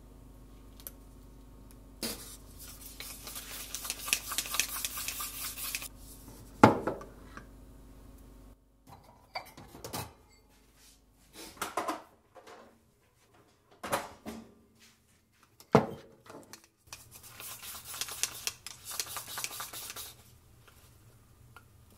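Chopsticks whisking natto in a ceramic bowl: a fast, scratchy clicking lasting about four seconds. Then single knocks and clinks as bowls and chopsticks are set down, and near the end another few seconds of chopsticks scraping against a bowl as the natto is pushed out onto rice.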